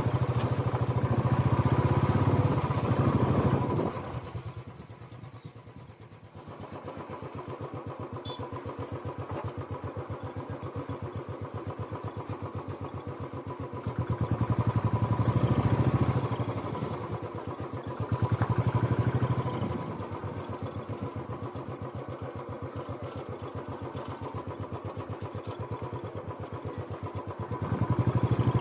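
Motorcycle engine running on the move, its rapid firing pulses steady throughout. It grows louder in swells as it pulls harder: in the first few seconds, twice around the middle and again near the end. It drops back to a quieter run for a couple of seconds after about four seconds.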